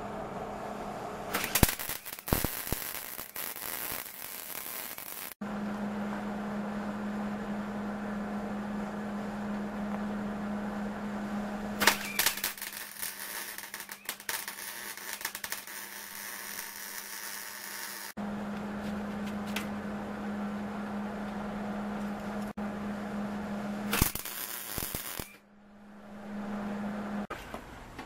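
MIG welder arc crackling and sputtering as steel is tack-welded, in three bursts of a few seconds each. A steady low hum runs in the pauses between the bursts.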